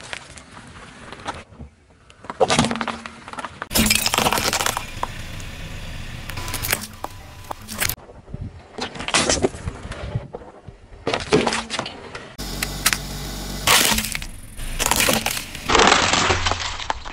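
Car tyre rolling over small objects and crushing them: a run of sharp cracks, crunches and crackling as plastic and packaging break under the wheel. It comes in several separate short takes, each cut off abruptly.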